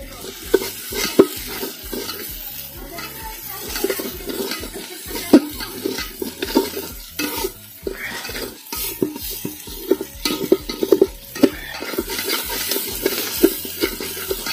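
Long metal spatula scraping and knocking against the side of an aluminium handi as onion masala is stirred, with irregular clinks, over the sizzle of the masala frying in oil.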